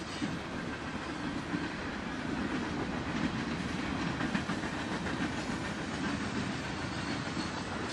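Norfolk Southern mixed freight train's cars rolling past with a steady rumble, steel wheels clicking faintly over the rail joints.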